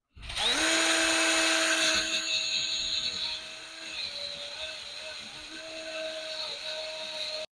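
Small electric power tool motor spinning up quickly, then running with a steady whine, dipping slightly in pitch a few times as it works the material. It is louder for the first two seconds, then somewhat quieter, and stops abruptly at the end.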